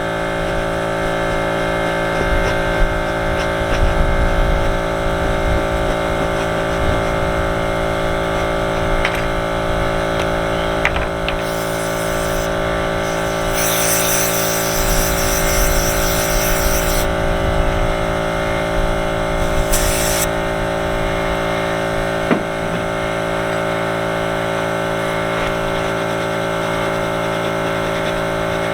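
Electric air compressor running with a steady hum. About halfway through, an aerosol can of brake cleaner hisses in three short sprays, the middle one the longest, about three seconds.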